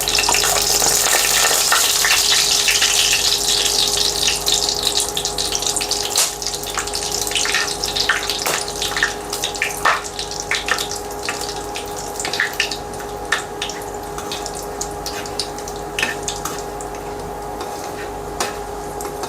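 Whole spices (bay leaves, cloves, cardamom, cinnamon sticks and shahjeera) sizzling as they roast in hot oil and ghee. The sizzle is loudest for the first few seconds, then dies down into scattered crackles and pops over a steady hum.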